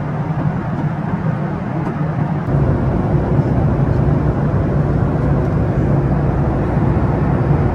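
Cabin noise inside a Boeing 737 MAX 8 airliner: a steady engine and airflow rumble heard from a passenger seat. The deep low rumble grows louder about two and a half seconds in and then holds.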